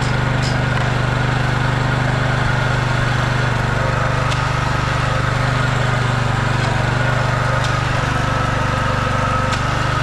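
Walk-behind petrol yard scraper's small lawnmower-type petrol engine running steadily at an even speed.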